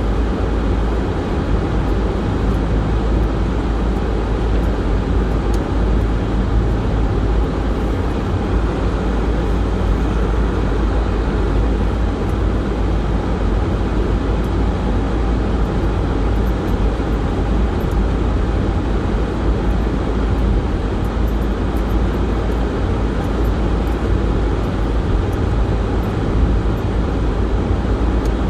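Steady in-cabin driving noise of a car on a snow-covered road: a constant low rumble of engine and tyres that holds even throughout.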